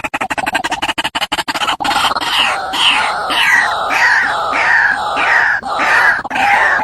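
White-breasted waterhen calling: a fast run of clicking pulses, then from about two seconds in a steady series of loud falling notes, a little over two a second.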